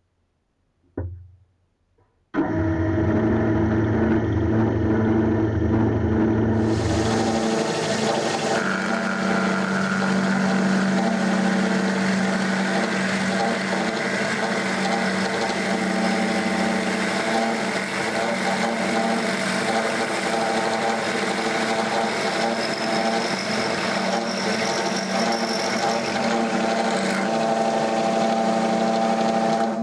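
Drill press motor running with a steady hum, its bit boring into a meerkat figurine. A harsher, hissing cutting noise joins about seven seconds in, and everything stops at the very end.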